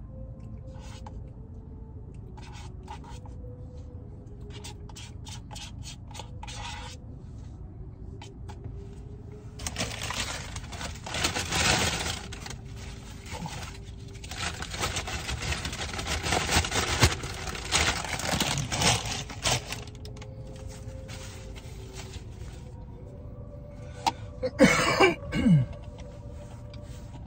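A McDonald's paper takeaway bag and wrappers being crumpled and rustled, loud and scraping, for about ten seconds in the middle, with light clicking before it. Near the end comes a short sucking slurp through a drink straw. Faint radio music plays quietly underneath.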